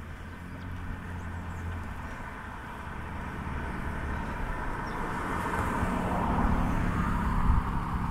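A motor vehicle's engine hum with road noise, growing louder over the second half as it draws near.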